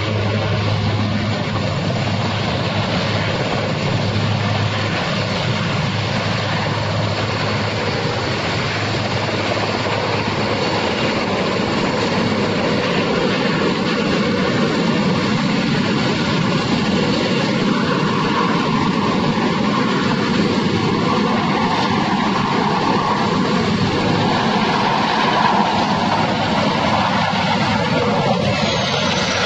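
Helicopter engine and rotor noise, loud and steady throughout, with a high whine falling near the end.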